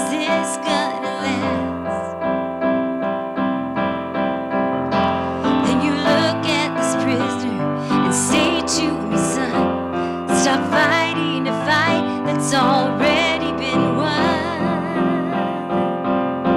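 A woman singing a solo with vibrato, accompanied by piano.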